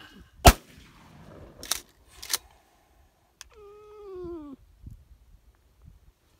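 A loud shotgun shot, then two fainter sharp shots about a second and a half in and half a second apart. After them comes a high-pitched cry of about a second that drops in pitch at its end.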